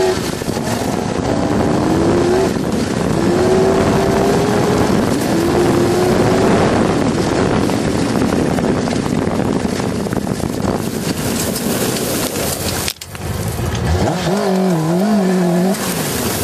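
Kawasaki ZX-6R inline-four motorcycle engine in a homebuilt buggy under way, its pitch climbing and dropping back four times in the first six seconds as it shifts up through the gears, then running at speed under a steady rushing noise. The sound cuts out for an instant about thirteen seconds in, and near the end the revs waver up and down.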